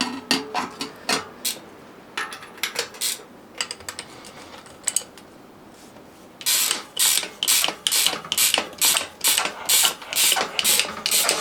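Ratchet clicking while disc brake rotors are fitted to a mountain bike wheel: scattered clicks and rattles at first, then from about six seconds in a steady run of short ratcheting strokes, roughly two a second.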